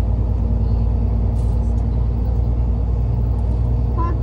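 Steady low engine and road rumble inside a moving vehicle carrying the group, with an even hum.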